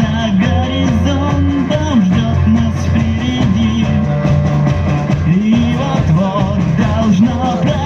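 Rock band playing live, with electric guitars, bass and drums and a melodic line that bends in pitch.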